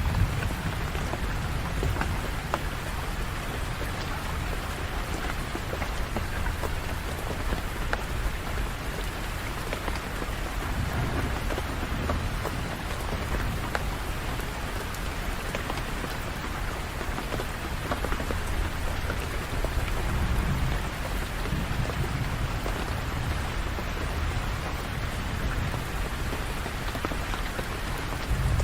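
Steady heavy rain falling and pattering on surfaces, with a low rumble that swells a few times.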